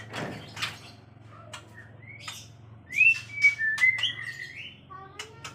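White-rumped shama (murai batu) calling: sharp clicks and a few whistled notes gliding up and down, the loudest about three to four seconds in.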